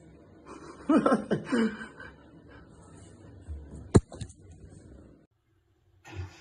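A person laughs briefly, a short chuckle about a second in. About four seconds in comes a single sharp knock, and the sound cuts off suddenly a second later.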